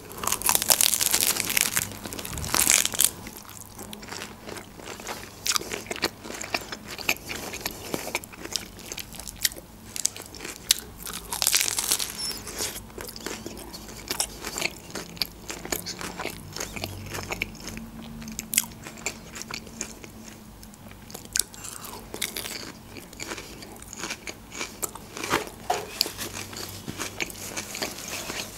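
Close-miked biting into a crisp iceberg lettuce leaf wrapped around a çiğ köfte bulgur patty, then chewing with many small wet crunches. The loudest crunches come in the first few seconds and again about twelve seconds in, with a second bite.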